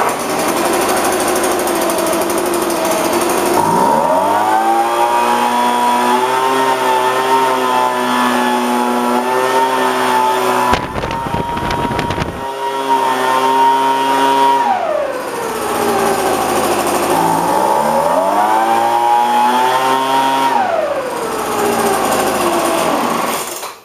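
Craftsman leaf blower's small gas engine, running properly after a carburettor rebuild and a new fuel hose: idling, revved up to high speed and held for about ten seconds, back to idle, revved up again for a few seconds, then shut off near the end.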